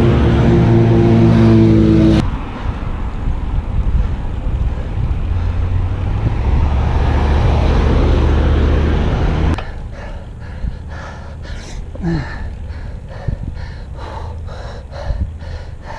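A car engine running close by for about two seconds, then a steady rush of wind and road noise on the microphone of a moving bicycle. About ten seconds in it turns quieter, with irregular wind buffeting and knocks.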